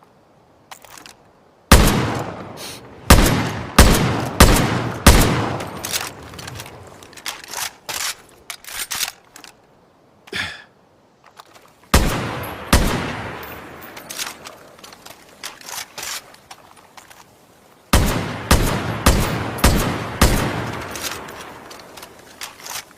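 Makeshift sound effect of SVD Dragunov rifle shots: sharp single shots in quick strings, each with a decaying echo tail. About five shots come a couple of seconds in, two around the middle and about five more near the end.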